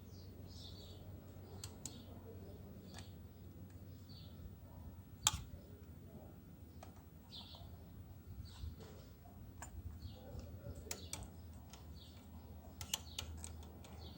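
Faint scattered clicks and taps of small plastic and metal parts being handled and fitted together on a hair clipper being reassembled, the sharpest click about five seconds in and a quick run of clicks near the end. Small birds chirp in the background over a faint low hum.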